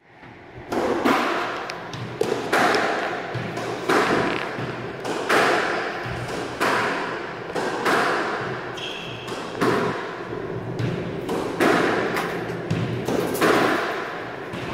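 Squash rally: racket strikes and the ball hitting the court walls about every second and a half, each hit echoing around the walled court.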